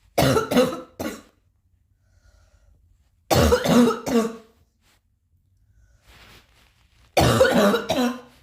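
Three short bouts of coughing a few seconds apart, each of about three quick coughs, with faint breaths between them: a cough that is still lingering.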